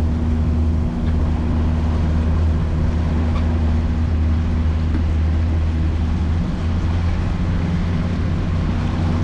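A 200 hp Mercury outboard motor running steadily as the boat cruises, a constant low hum with wind and water noise over it.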